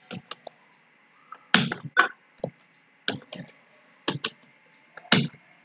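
Keys clacking on a computer keyboard in several short, irregular bursts as a short word is typed, with quiet gaps between the keystrokes.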